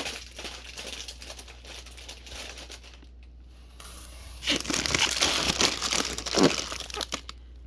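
Packaging crinkling and rustling as produce is handled and lifted out of a delivery box, quieter for a moment midway and loudest in the last few seconds.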